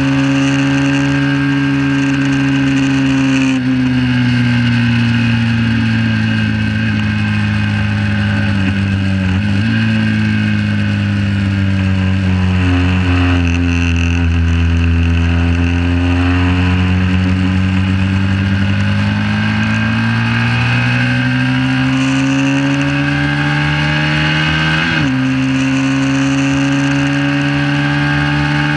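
Onboard sound of a 1968 Honda CB350's air-cooled parallel-twin engine run hard in a road race. The engine pitch drops about three and a half seconds in as the bike slows for a corner, stays lower through the bend, then climbs again as it drives out, with a sharp break in pitch about 25 s in, like a gear change.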